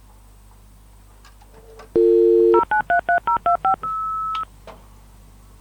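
Telephone dial tone for about half a second, then a rapid string of touch-tone keypad beeps dialling a number, ending in one steady higher beep. It starts about two seconds in.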